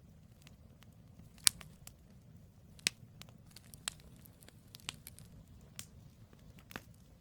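Firewood burning in a campfire: sharp crackles and pops about once a second, the loudest about one and a half seconds in, over a low steady rumble of the flames.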